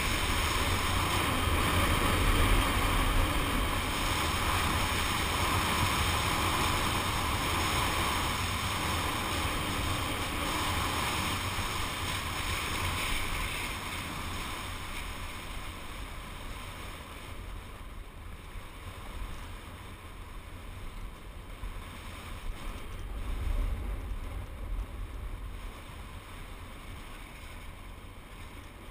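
Wind buffeting a helmet-camera microphone during a fast downhill run, over a steady hiss of sliding on groomed snow. It is loud at first and eases off about halfway through, with a brief swell near the end.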